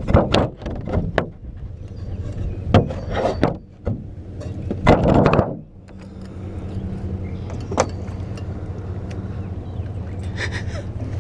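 Sharp knocks and rattles of a camera mount being handled on its pole, with a loud muffled burst about five seconds in. Then a steady low motor hum settles in, with a single click partway through.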